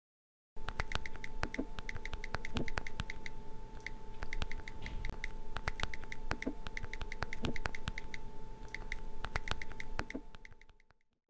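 Rapid typing clicks with short high beeps, over a steady electronic tone and hum. The sound starts about half a second in and fades out near the end.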